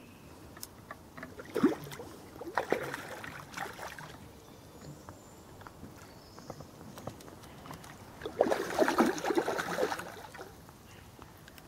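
Hooked common carp splashing and thrashing at the water's surface, in two bouts: one about two seconds in and a longer one about eight seconds in.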